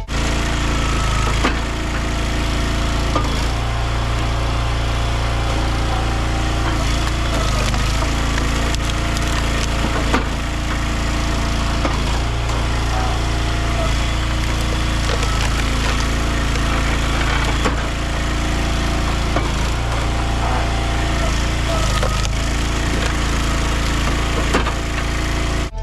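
A gas engine running steadily under load while wood cracks and splinters, with scattered sharp cracks through it.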